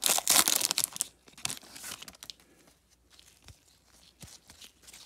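Foil wrapper of a baseball card pack being torn open and crinkled, loud for about the first second. After that come quieter rustles and a few light clicks as the cards are handled.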